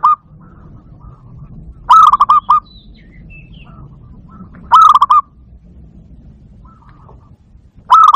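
Barred dove (zebra dove, bato-bato) cooing: short staccato phrases of four or five quick notes, repeated about every three seconds. Two full phrases fall about two and five seconds in, with the tail of one at the very start and another starting near the end.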